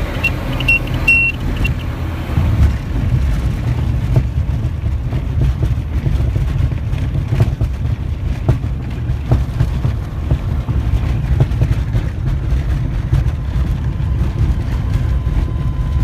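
SOCATA TB200's four-cylinder Lycoming piston engine and propeller running at low power, heard inside the cockpit while the aircraft rolls over a grass strip, with irregular knocks and rattles from the bumpy ground. A few short high beeps sound about a second in.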